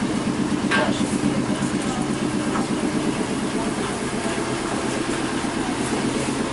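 A steady engine-like running sound with a fast, even low pulsing, under faint voices.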